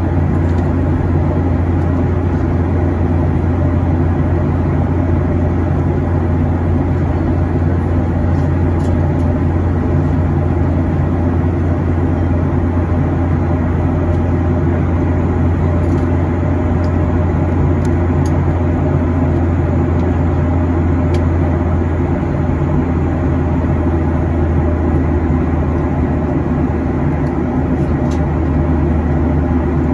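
Steady cabin noise of a Boeing 737-800 in flight, heard from a window seat: a low, even rumble of airflow and its CFM56-7B engines.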